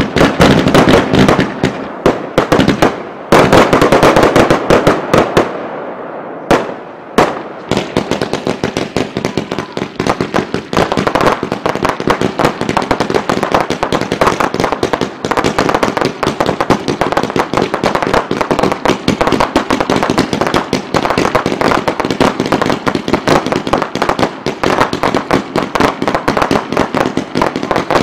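Fireworks heard close to the launch tubes: a quick run of bangs, a louder burst about three seconds in that dies away, then from about eight seconds in a dense rapid-fire barrage of many launches and bursts.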